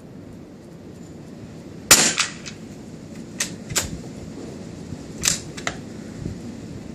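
A single shot from a CZ 452 bolt-action .22 LR rifle, a sharp crack about two seconds in, followed by several lighter clicks and a second, weaker sharp report near the five-second mark. Wind rumbles on the microphone throughout.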